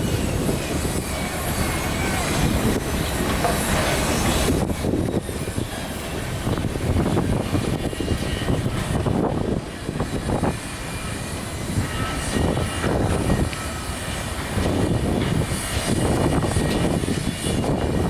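Continuous heavy mechanical rumble and clatter, rising and falling in loudness, with faint squealing tones over it.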